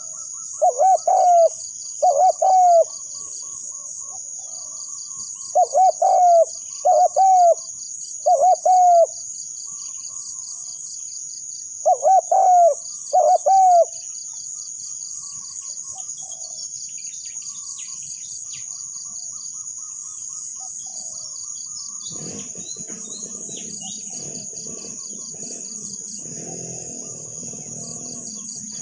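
Spotted dove cooing: three phrases of low coos, two, three and two notes, in the first half. A steady high insect buzz runs underneath, and from about two-thirds of the way through a low rustling noise comes in.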